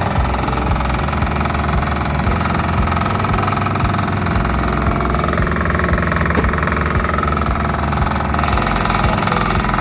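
A small engine running steadily at an even speed, loud and close, with no change in pitch.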